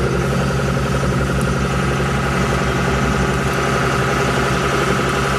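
A shrimp boat's engine running steadily: a constant low drone with an even, fast pulsing.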